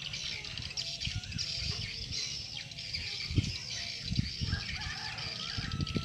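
Dense, high, chirping twittering of edible-nest swiftlets around a swiftlet house, made up of the birds and the call sound played from the house to lure them in. Low, irregular rumbles on the microphone run underneath.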